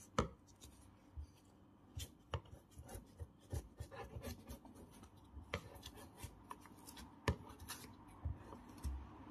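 Faint scraping and scattered light clicks of hand tools working in a refrigerator, dismantling around the leaking refrigerant tube.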